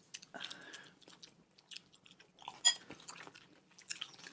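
Close-up chewing and biting of crispy chicken, with soft crunches and small wet mouth clicks. A light clink of a utensil sounds about two and a half seconds in.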